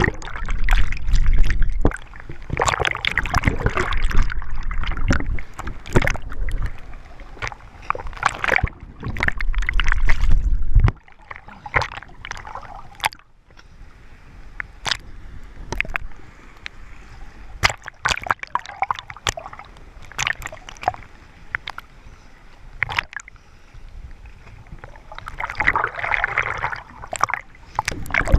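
Ocean surge churning and sloshing through a rocky blowhole channel, with repeated splashes against rock as each swell pours in. A heavy low rumble sits under it for about the first eleven seconds and cuts off suddenly.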